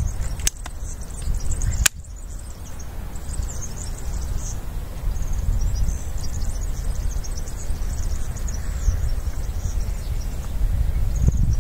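A few sharp clicks in the first two seconds as the air rifle is handled for loading, then a steady low wind rumble on the microphone with birds chirping.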